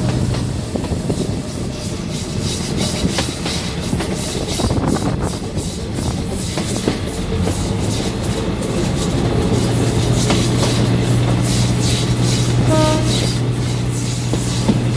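Diesel-hauled passenger train running, heard from aboard: wheels clacking over rail joints in irregular strokes. A steady low engine hum grows stronger about halfway through, and the horn gives a short blast near the end.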